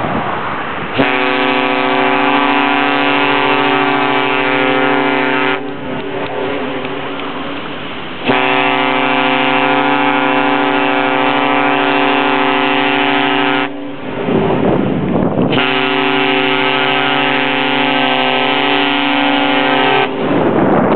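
Cruise ship MS Deutschland's horn giving three long, steady blasts of about five seconds each, a deep tone with many overtones, with short pauses between them.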